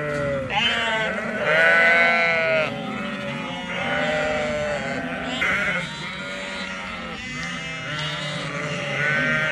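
A flock of ewes and lambs bleating, many deep and high calls overlapping, loudest about two seconds in.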